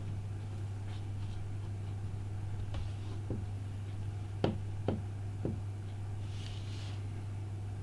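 A few small clicks and taps of tools and tiny parts being handled, three sharper ones close together about halfway, over a steady low hum.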